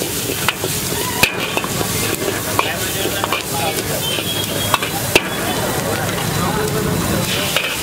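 Chopped onions and cabbage sizzling in a hot wok while a steel ladle stirs and scrapes them around, with several sharp clanks of the ladle against the wok.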